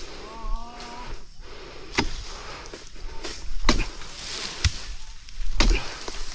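Oil palm pruning chisel (dodos) on a long pole striking frond bases: four sharp knocks, spaced a second or two apart.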